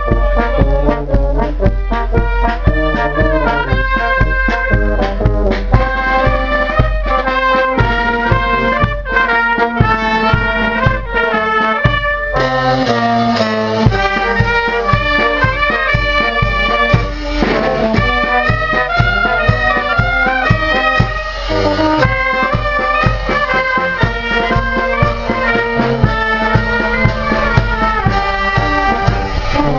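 A Maltese marching band playing live: trumpets and other brass with clarinets over a steady bass drum beat.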